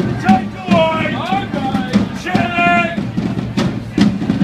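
Marching drums in a bonfire-night procession band, bass drum and snare beating steadily. Two high held notes sound over the drumming, the first sliding in pitch, the second steady.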